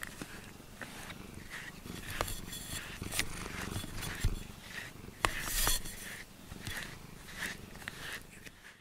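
Cat right up against the microphone: fur brushing and rubbing, with scattered sharp clicks and a couple of soft low bumps.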